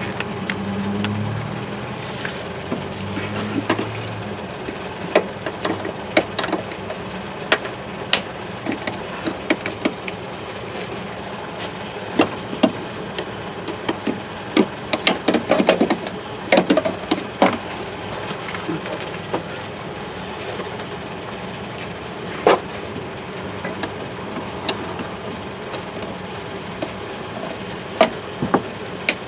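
Scattered sharp clicks and light knocks, densest about halfway through, over a steady background hum.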